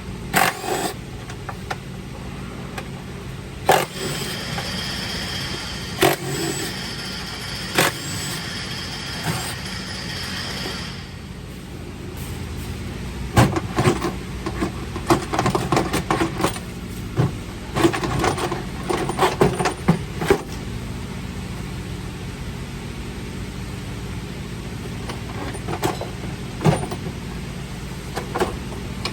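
Mack MP8 inline-six diesel engine idling steadily, with scattered sharp metallic clanks and knocks over it and a high thin whine for several seconds in the first half.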